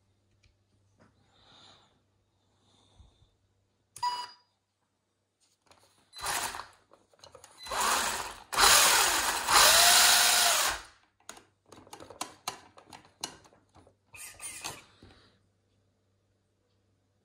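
WLtoys 12428 RC crawler's electric motor and gear drivetrain whirring in spurts with the wheels off the ground. The longest run is in the middle and rises and falls in pitch, then the motor only twitches in short jerky bursts. This is the misbehaviour of a faulty ESC.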